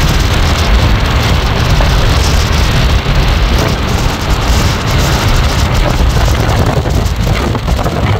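Loud wind rumble buffeting the microphone, a steady rushing noise with no distinct engine or rail sounds.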